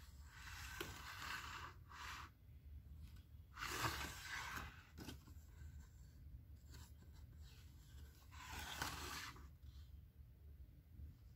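Pages of a paperback picture book being turned by hand, a soft paper rustle and flap a few times.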